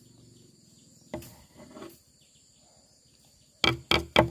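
Faint, steady high-pitched insect drone with a single click a little over a second in. Near the end, four loud, short, pitched calls come about a quarter second apart.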